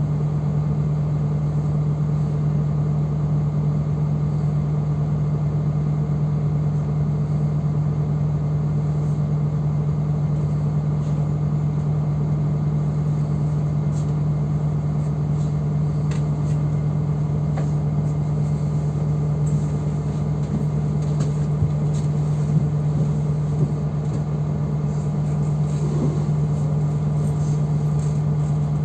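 Interior noise of a city bus: a steady low hum and rumble from the running bus, with a few faint clicks and rattles in the second half.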